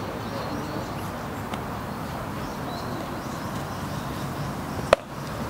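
Steady ballpark background with faint distant chatter, then one sharp crack near the end as the pitched baseball makes impact.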